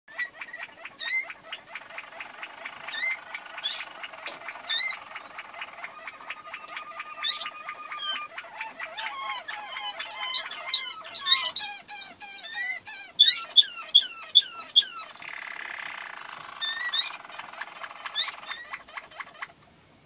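Caged canaries singing: long rolling trills and strings of gliding whistled notes. Around three quarters of the way through there is a harsher rolling passage.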